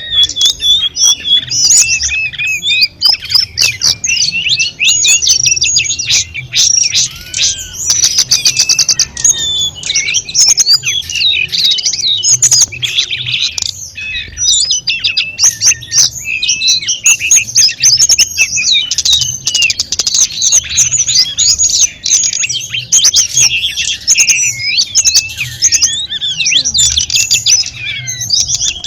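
Tledekan gunung songbird singing a dense, rapid, varied song of high chirps, whistles and trills with hardly a pause.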